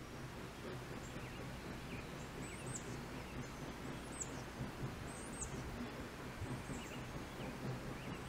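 Quiet outdoor ambience: a bird repeats short, high chirps every second or so over a faint, steady low hum.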